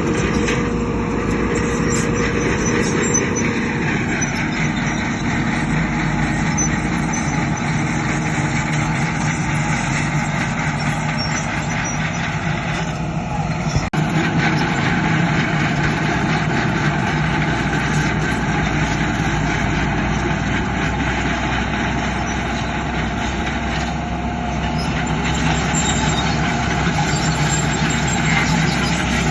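Diesel engines of heavy earthmoving machinery running steadily, with a single sharp knock about halfway through.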